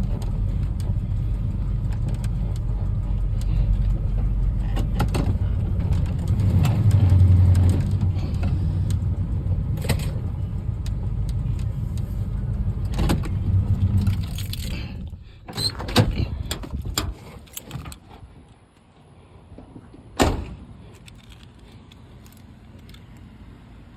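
Old Chevrolet C10 pickup's engine running with a steady low rumble that swells twice, then shut off about fifteen seconds in. A few clicks and a single sharp thump follow.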